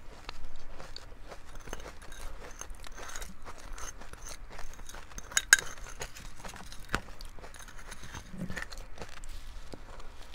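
Close-miked biting and chewing of powdery ice coated in matcha powder: a run of irregular crisp crunches, the loudest about five and a half seconds in.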